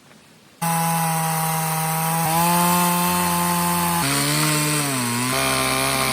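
Chainsaw on an Alaskan mill running at high revs as it cuts through a log. It starts suddenly about half a second in, and its pitch steps up and down several times and dips as the cut loads the engine.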